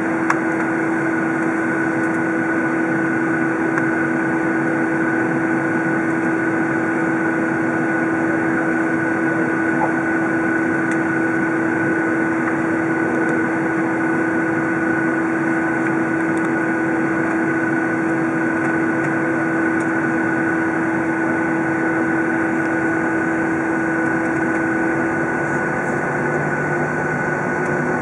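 Boeing 737's jet engines at taxi idle, heard inside the cabin over the wing: a steady rush with an even, high whine. Near the end the lower steady tone fades and a deeper hum comes in.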